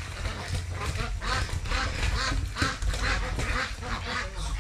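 Ducks quacking, many short calls in quick succession.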